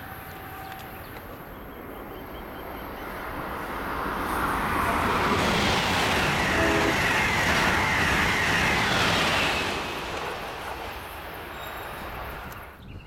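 Amtrak Acela Express passing at speed: a rush of wheel and air noise that swells about four seconds in, holds loud for several seconds, then fades away.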